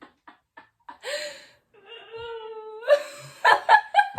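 A woman's voice making wordless sounds: a breathy burst about a second in, then one long drawn-out whining note, then a few short loud vocal bursts near the end.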